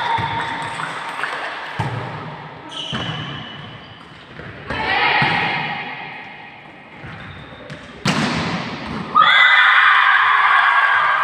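A volleyball rally: the ball is struck about four times with sharp smacks, amid players' voices. A loud burst of shouting breaks out about nine seconds in.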